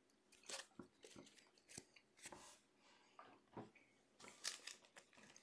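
Near silence, with a few faint, brief clicks and rustles of trading cards being handled.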